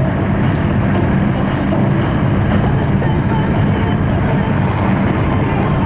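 Steady engine and tyre noise heard inside a car's cabin as it drives along a highway.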